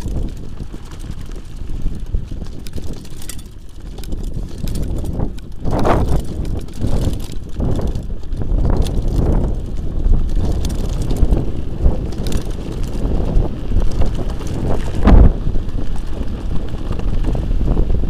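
Mountain bike riding fast down a bumpy dirt track: wind buffeting the microphone over the rumble and rattle of tyres and frame, with a few sharper knocks from bumps, the loudest about fifteen seconds in.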